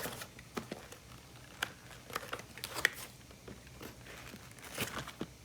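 Crinkling and rustling of toy packaging being handled and opened, with scattered sharp clicks; the sharpest click comes about three seconds in.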